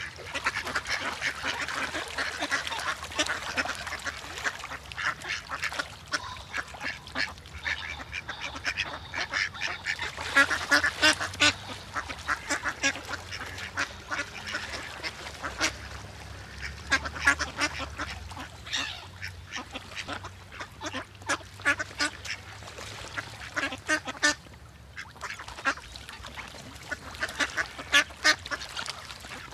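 Many ducks quacking over one another in a dense, continuous chorus of short calls, with a brief lull a little before the end.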